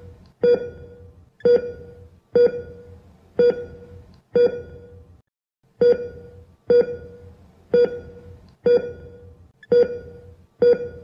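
Patient monitor's pulse beep sounding about once a second at a steady pitch, one beep per heartbeat, over low operating-room hum. It breaks off for about half a second around five seconds in.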